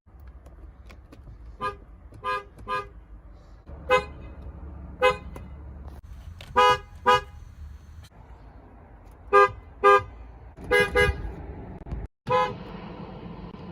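Car horn sounded in about a dozen short beeps, singly and in quick pairs with gaps between, over a low steady rumble. The sound drops out briefly about twelve seconds in.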